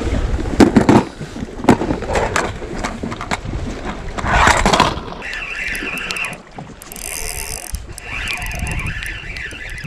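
Clear plastic fishing-lure box being handled and opened, its lid and the hard lures inside clattering in a run of sharp clicks and knocks. From about five seconds in this gives way to a steadier scratchy whirring in two spells as a spinning reel is handled.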